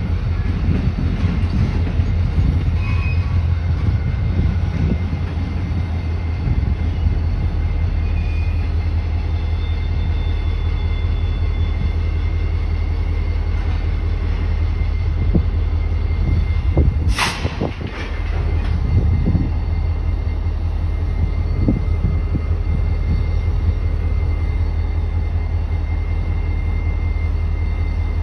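CSX diesel-electric locomotives running in a rail yard: a steady low engine rumble, with a faint high steady tone in the second half. A single sharp knock about two-thirds of the way through.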